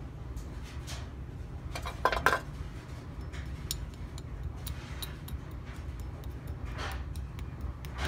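Light clinks and scrapes of a metal spoon against a metal muffin tin and a plaster mold while zinc is ladled into the mold, with a louder cluster of clinks about two seconds in.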